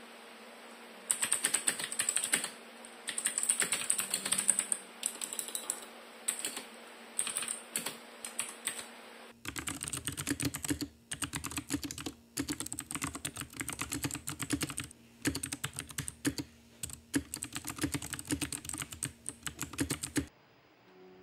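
Mechanical keyboard typing, quick runs of clacking keystrokes with short pauses. From about nine seconds in it is the raw sound picked up by a Maono PD100X dynamic microphone, fuller and deeper than before. The typing stops shortly before the end.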